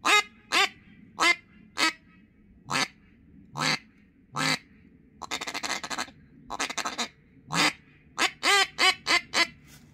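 3D-printed mylar-reed duck call blown as a deep mallard hen: spaced single quacks, a fast chattering feed call about five seconds in, then a quick run of quacks near the end.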